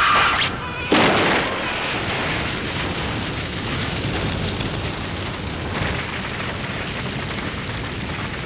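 Sound effect of a fire: a sudden blast about a second in, then the steady rushing noise of a big blaze that slowly fades.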